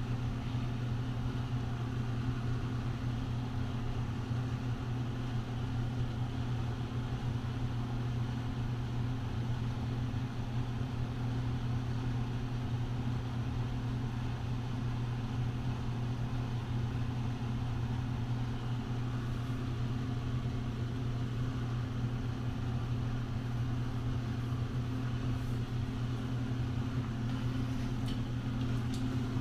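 A steady low hum that holds the same pitch and level throughout.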